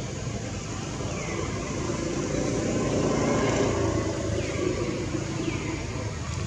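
A motor vehicle passing, its engine and road noise swelling to a peak about halfway through and then fading.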